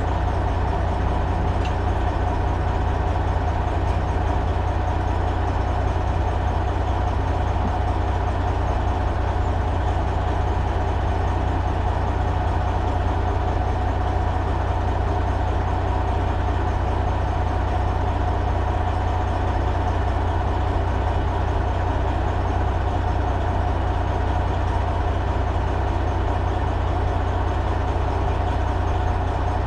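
Heavy diesel truck engine idling steadily, a constant low rumble with a steady mid-pitched hum over it.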